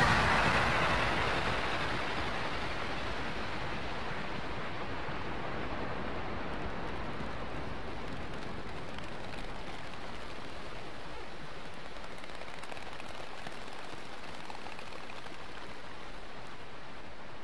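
The last of the music dies away in the first couple of seconds, leaving a steady, even hiss of vinyl record surface noise.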